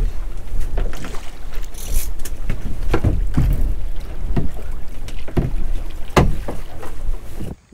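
Wind buffeting the microphone aboard a small boat, with a string of knocks and thumps on the hull and deck; the sound cuts off suddenly near the end.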